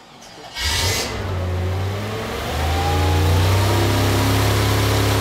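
Engine of a giant fighting robot's hydraulic power unit, on its tracked base, starting up about half a second in with a short burst of noise. It settles into a steady low running note, picks up around two and a half seconds in, and keeps running, giving the robot hydraulic power.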